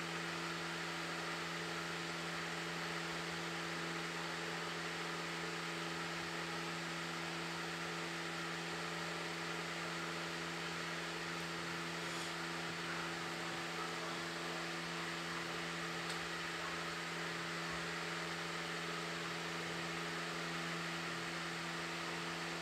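Room tone: a steady low hum with an even hiss behind it, unchanging throughout.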